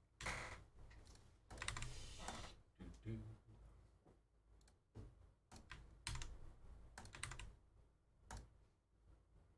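Faint typing and clicking on a computer keyboard and mouse, in scattered short bursts.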